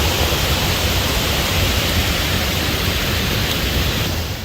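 Strong wind rushing and buffeting against the microphone, a steady loud roar with a low rumble, fading out near the end.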